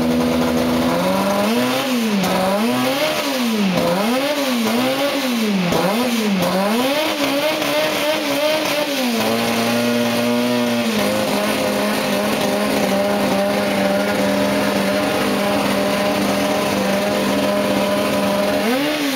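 Benetton turbocharged Formula One engine being blipped: a run of about seven quick revs one after another, then settling to a steady idle that drops slightly in pitch about halfway through, with one more rev near the end.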